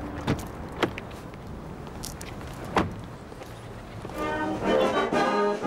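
Outdoor street ambience: a steady traffic rumble with a few sharp clicks. About four seconds in, music with held, sustained notes comes in.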